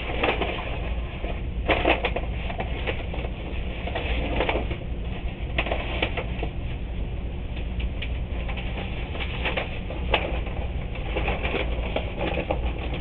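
Sheets of newspaper rustling and crinkling as they are handled and leafed through, in irregular bursts over a steady low hum.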